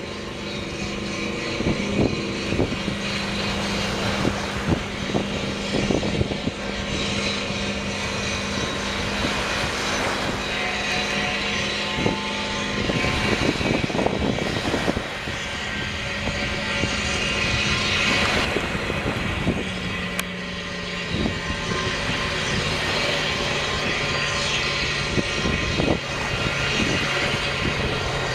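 Wake boat's inboard engine running across the water, a steady drone that drops in pitch about two-thirds of the way through as the boat eases off. Scattered thumps throughout.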